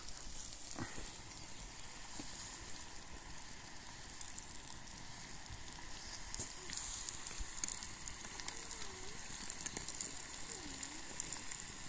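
Potatoes deep-frying in a pot of hot oil over a wood campfire: a steady sizzling hiss with fine crackles running through it.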